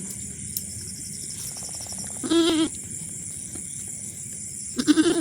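Goats bleating: two short, wavering bleats, the first about halfway through and the second near the end.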